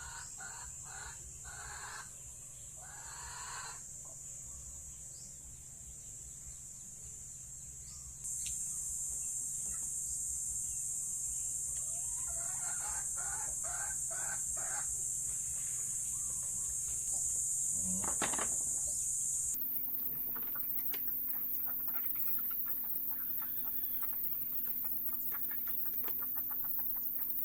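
Chickens clucking in short bursts over a steady high-pitched hiss that gets louder about eight seconds in.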